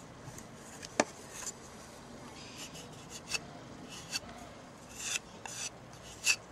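Metal spatula scraping as it spreads and presses gesso di Bologna filler into holes in a wooden board, in several short faint strokes. A sharp tick about a second in.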